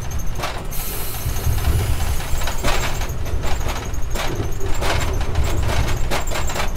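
Amtrak passenger coach rolling along at speed, heard from inside: a steady low rumble with irregular clicks and rattles from the wheels and car body, and a brief hiss about a second in.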